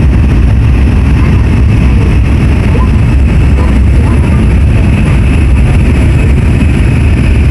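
Steady low rumble of an N700S Shinkansen train running at speed, heard from inside the passenger cabin, with faint voices in the background.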